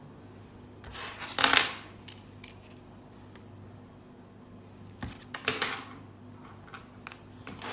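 Small hard parts clinking and clattering as they are handled: a short burst of clatter about a second and a half in, another about five seconds in, and a few lighter ticks near the end, over a low steady hum.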